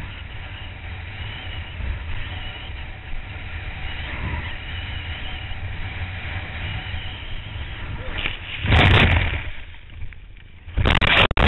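Wind buffeting a kitesurfer's headcam microphone, with water rushing under the board, as the rider crosses choppy water. About nine seconds in, and again just before the end, come two loud bursts of wind and water noise as the rider wipes out and tumbles into the water.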